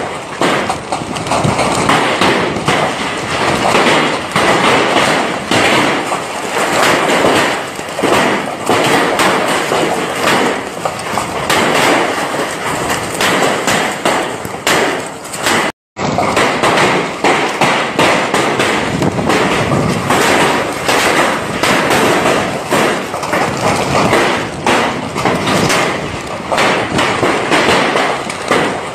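Heavy wind-driven rainstorm: a dense rush of rain and gusting wind with a constant patter of drops knocking close by. The sound cuts out for a split second about halfway through.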